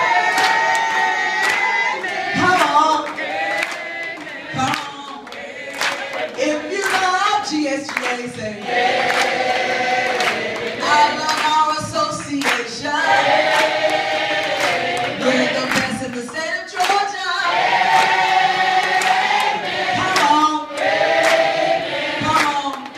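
A roomful of people singing together, clapping along in time.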